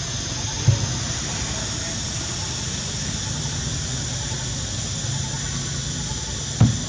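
Steady outdoor background noise: an even hiss over a low hum, broken by two short thumps, one about a second in and one near the end.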